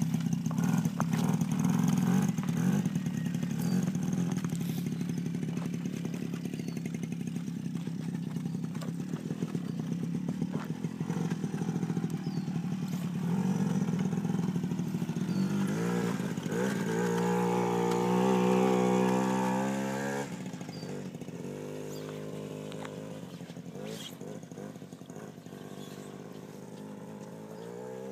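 Engine of a small youth ATV running steadily. About two-thirds of the way through it revs with a wavering pitch, then drops back and fades as the quad moves away.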